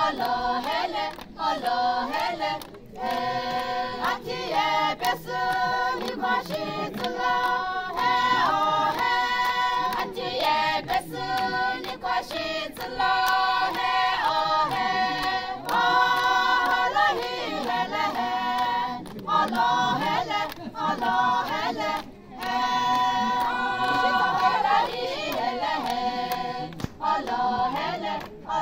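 A chorus of women singing a traditional Sumi Naga song together in phrases broken by short pauses, with the light clack of bamboo poles being knocked together.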